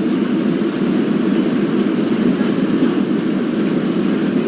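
Steady, unchanging low drone of an airliner cabin in flight: engine and airflow noise.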